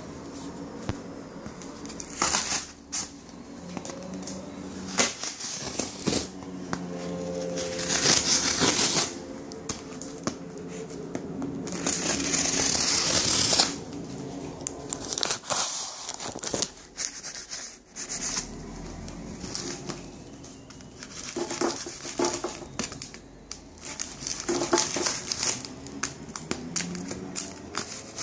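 A parcel being unpacked by hand: packaging crinkling, rustling and tearing in irregular bursts, with longer loud tearing or rustling stretches about eight seconds in and again around twelve to thirteen seconds in.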